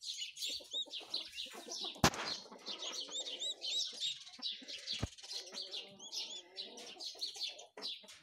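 A brood of chicks peeping continuously in quick, high, arching chirps. A sharp click cuts through about two seconds in, with a smaller one about five seconds in.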